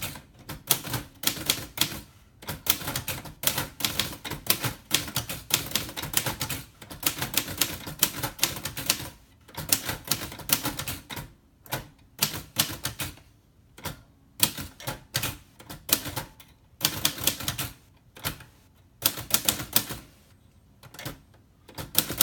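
1941 Royal Aristocrat manual typewriter being typed on: quick runs of sharp clacking keystrokes, with short pauses between runs.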